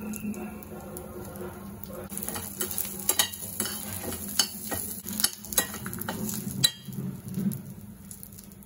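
Dried red chillies, garlic and curry leaves frying in a stainless steel pan, stirred with a metal spatula that clicks and scrapes against the pan from about two seconds in until near the end.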